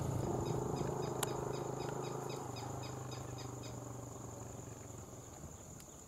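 Wetland ambience: a steady high-pitched insect drone, with a quick run of short chirps, about four a second, that stops about halfway through. Under it a low hum fades away about five seconds in.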